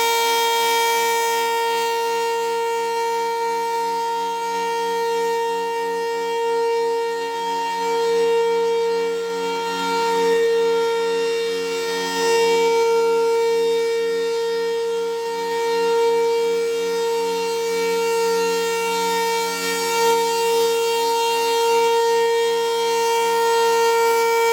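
Federal Thunderbolt 1000 rotating outdoor warning siren sounding the steady full-alert tone: one held pitch with strong overtones, swelling and fading every few seconds as the rotating head turns.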